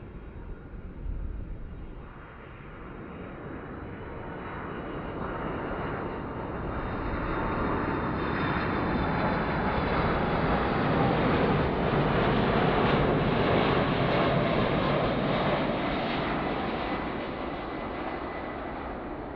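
Boeing 747-400 on final approach, its four jet engines passing close: a broad rush with steady high whining tones. It grows louder to a peak past the middle, then eases off near the end.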